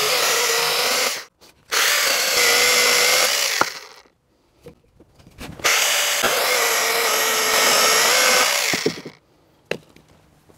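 Hychika CS18D 18 V brushless cordless mini chainsaw cutting through a 4-inch log in three bursts of a steady whine, each stopping abruptly. A few short knocks follow near the end.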